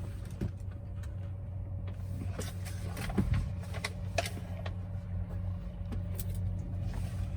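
Steady low electrical hum inside a Bell 206 JetRanger cabin, with battery power and the fuel boost pump on and the turbine not yet started, and a thin steady whine above it. Scattered light clicks and knocks over it, the loudest a little after three seconds in.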